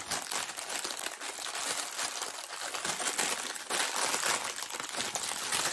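Plastic packaging bag crinkling and rustling without pause as hands open it and unwrap what is inside, an irregular crackle of many small ticks.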